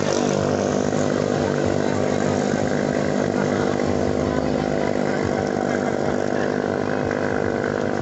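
Small single-cylinder racing-boat engines (6.5–8.5 HP ketinting class) running flat out in a steady drone.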